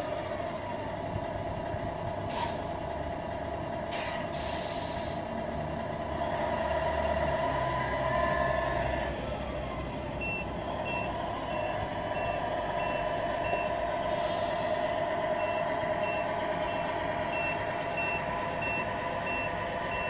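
RC truck sound unit of a Tamiya Scania R470 playing a diesel engine running, with short air-brake hisses a couple of seconds in, around four seconds and around fourteen seconds. From about halfway through a reversing beeper sounds in a steady repeating beep as the truck backs up.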